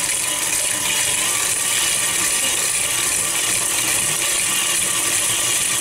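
Stand mixer running steadily with its wire whisk beating butter and sugar together in a steel bowl, creaming them for shortcrust pastry.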